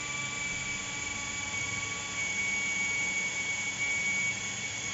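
Hujia Pro 21321 brushless cordless drill running in its low speed gear, boring an 8 mm wood bit into mahogany. Its motor gives a steady high whine at an even pitch, and the bit cuts through smoothly without bogging.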